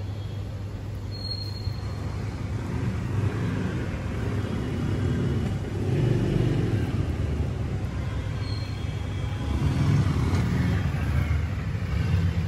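Low rumble of motor traffic, swelling about a quarter of the way in and again near the end.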